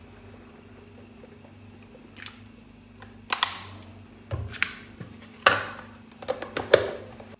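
Objects being handled: a series of sharp knocks and clinks, sparse at first, then several louder ones in the second half, over a steady low hum.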